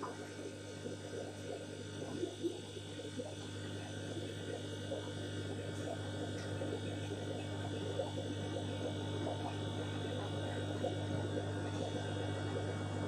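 Steady electric hum of fish-room aquarium pumps, with a fine gurgling and bubbling of water being pushed through the hoses to purge air from the siphon pipes, growing slowly louder.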